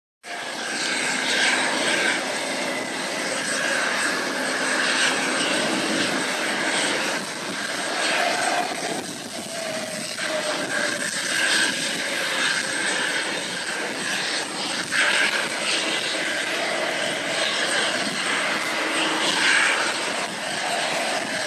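Jet engines of a Boeing 777-200ER airliner heard from a distance as it comes in on final approach and lands: a steady jet rush with a thin high whine.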